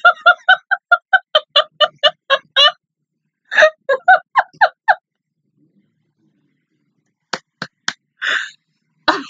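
A woman laughing hard in rapid, pitched 'ha-ha-ha' pulses for about five seconds, then after a short pause three quick hand claps and a breathy burst of laughter.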